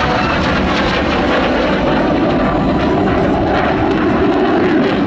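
Single-engine F-16 fighter jet flying past overhead: loud, steady jet engine noise.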